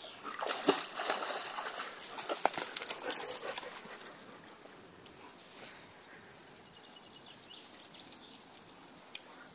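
A red-and-white setter splashing in a shallow river, with loud noisy splashes and a few sharp knocks for the first three seconds or so. It then gives way to quieter outdoor air with a short, high chirp repeating about once a second.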